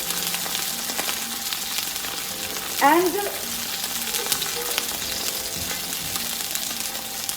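Salmon fillet sizzling skin-side down in a very hot, lightly oiled pan, a steady frying hiss full of small crackles as the skin crisps.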